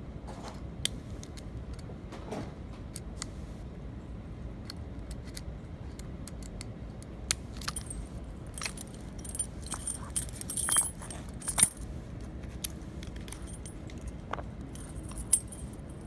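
Small sharp metal clicks and scrapes of a lock pick and tension wrench working the pins of a clear practice padlock. About two-thirds of the way through comes a louder flurry of clinking and jingling from the padlock's steel shackle and the key hanging on it.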